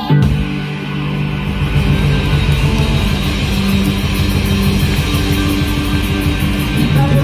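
Live rock band playing loud, an instrumental passage with electric guitar and drums and no singing. The full band comes in hard right at the start.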